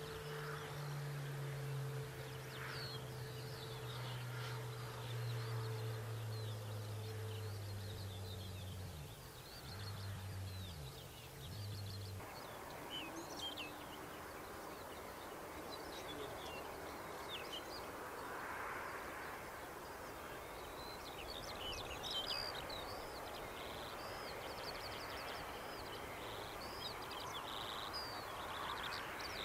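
Outdoor ambience of birds chirping and calling over a steady hiss. A low hum drops in pitch and cuts off about twelve seconds in.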